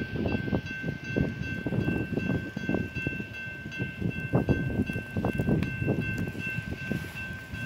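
Distant train approaching on the track, heard under gusty wind buffeting the microphone, with a thin steady high tone held throughout.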